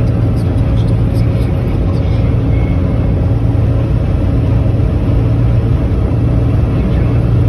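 Vehicle cruising at highway speed, heard from inside the cabin: a loud, steady drone of engine and road noise with a low hum.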